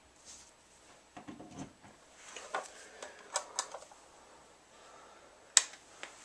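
Scattered light clicks and taps of a hand handling the equipment, then one sharp click about five and a half seconds in as the CRT monitor's power switch is pressed.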